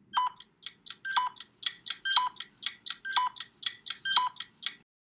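Countdown ticking sound effect: quick clock-like ticks, about four a second, with a short beep on the accented tick once a second. It stops shortly before the answer.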